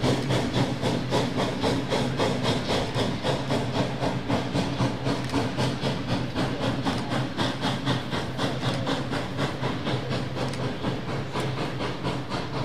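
Durango & Silverton K-28 No. 473, a narrow-gauge 2-8-2 steam locomotive, chuffing steadily under load at about four exhaust beats a second, with steam hiss, growing slightly fainter as it draws away.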